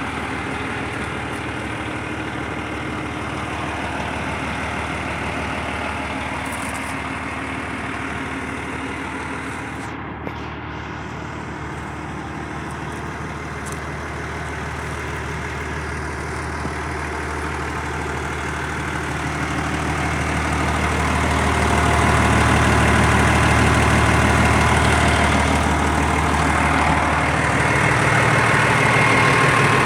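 Lamborghini R4.105 tractor's diesel engine idling steadily, growing louder about two-thirds of the way through.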